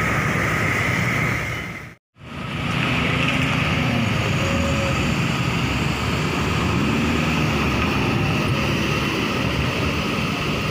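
Steady road traffic: cars and motorbikes passing, their engine pitch rising and falling as they go by, with a brief silent dropout about two seconds in.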